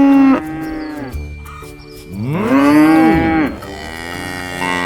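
A cow mooing: the end of one moo just after the start, then one long moo about two seconds in that rises and falls in pitch.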